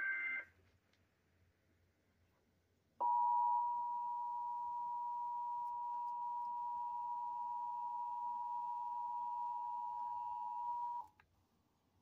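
The last burst of an EAS SAME data header, a brief warble of high tones, ends in the first half second. About three seconds in, the NOAA Weather Radio 1050 Hz attention tone starts and holds one steady pitch for about eight seconds, then cuts off. This tone is the signal that a warning message is about to be read.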